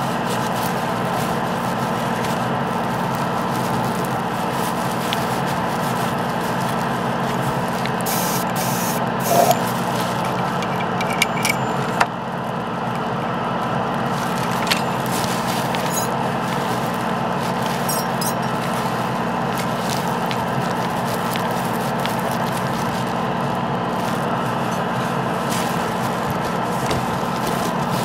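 Steady hum of a small electric motor in the airbrush setup, with a brief burst of air hiss about nine seconds in and a few small clicks around eleven to twelve seconds.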